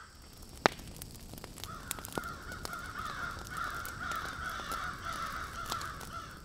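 Crows cawing in the background, a run of harsh overlapping calls from about a second and a half in. There is a sharp click under a second in.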